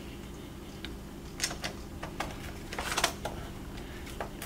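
Scattered light clicks and taps of a screwdriver and the plastic housing of a Polaris 380 pool cleaner being handled as machine screws are threaded into the body, over a steady low hum.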